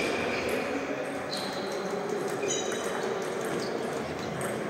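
Table tennis ball clicking off bats and the table during a rally, a few sharp hits spaced unevenly, against the steady background of a large sports hall with faint chatter.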